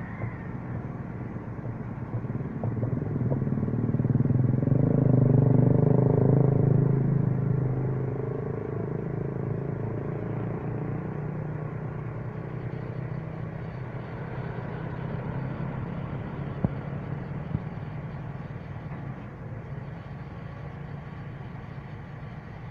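Heavy diesel engine running, growing louder for a few seconds early on and then settling back to a steady drone.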